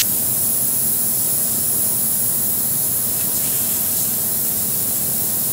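Air-powered vacuum brake bleeder running with a steady hiss while its tube sucks old brake fluid out of a motorcycle's rear brake master cylinder reservoir.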